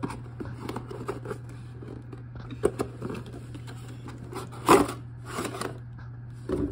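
A taped toy box being torn open by hand: crackling, rustling and clicking of packaging, with one much louder crack a little before five seconds in.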